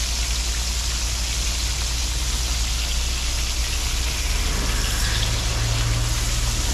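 Pieces of king fish frying in hot oil, a steady sizzle, over a steady low hum; a second low tone joins the hum about four and a half seconds in.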